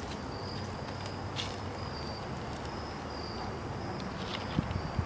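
Insects trilling in a steady run of short high-pitched pulses over a low hiss, with a few light clicks and a couple of louder knocks near the end.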